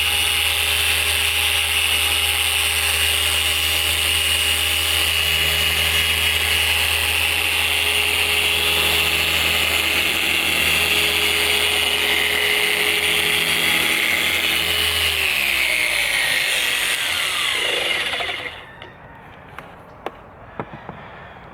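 Electric paint polisher running steadily with a high whine while buffing compound into car paint. About 15 seconds in it is switched off and its pitch falls as it winds down, followed by a few light clicks.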